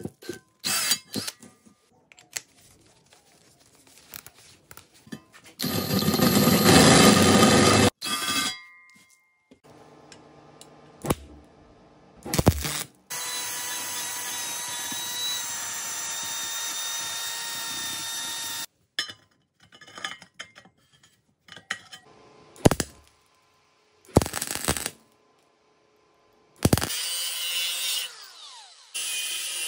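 Cordless drill boring into and working the sheet steel of a pot lid, heard in short separate runs with gaps. The loudest run comes about 6 to 8 seconds in, and a long steady run of drilling comes in the middle. Near the end an angle grinder runs and then winds down, its pitch falling.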